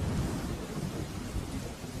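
Steady rain hissing, with a low rumble of thunder that swells just as it begins and rolls on underneath.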